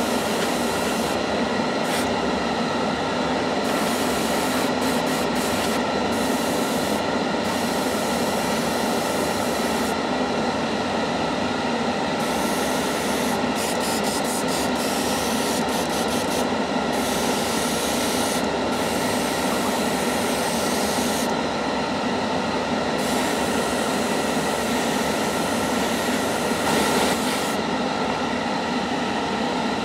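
Airbrush spraying thinned acrylic paint in repeated short passes, its air hiss starting and stopping many times, over the steady drone of a fan.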